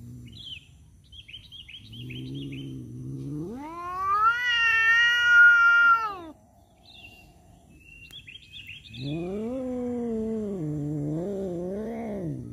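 Tomcat caterwauling: a low drawn-out yowl that climbs into a long high wail about four seconds in and falls away, then a second wavering yowl near the end. It is the threat yowl of a male cat squaring off with a rival over a female.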